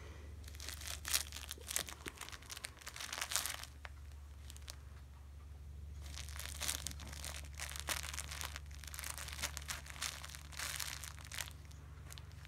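A cat clawing, biting and kicking at a cloth roll stuffed with dried catnip: scratchy rustling and crinkling of the fabric and the catnip inside. It comes in two spells, from about half a second to three and a half seconds in, and again from about six to eleven and a half seconds in.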